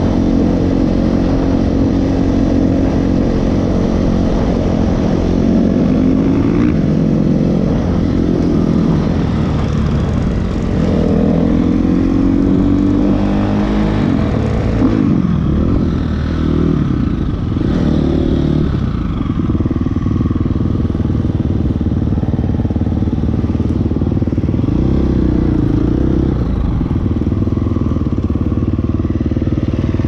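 Four-stroke dirt bike engine running at road speed, its pitch rising and falling with throttle and gear changes through the middle, then steadier near the end.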